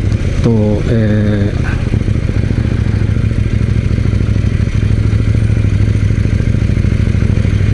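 KTM 790 Duke's parallel-twin engine running steadily at low revs, heard from the rider's seat as the bike rolls slowly in traffic.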